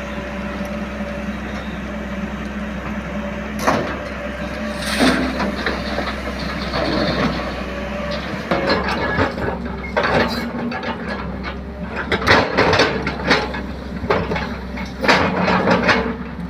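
JCB 3DX backhoe loader's diesel engine running steadily. Bursts of clattering, scraping work noise come a couple of times in the first half, then thickly through the second half.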